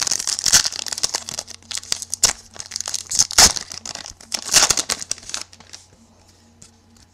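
Clear plastic wrapper crinkled and crumpled by hand in a run of sharp crackles, loudest about half a second, three and a half and four and a half seconds in, dying away about five and a half seconds in.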